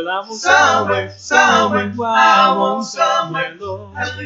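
Male vocal group singing gospel a cappella in harmony, with a bass voice holding long low notes beneath the upper parts.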